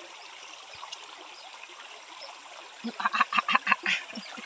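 A small stream trickling steadily, then, about three seconds in, a loud rapid staccato call of short pulses, about seven a second, sets in and goes on.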